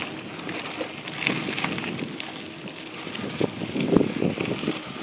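Bicycles rolling along a dirt trail: tyre noise and wind buffeting the microphone, with light rattles and knocks from bumps that come thicker in the second half.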